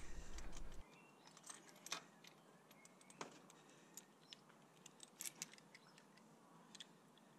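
Faint, irregular light clicks and metallic clinks, a dozen or so, from small metal tools and parts being handled. A low background hum cuts out under a second in.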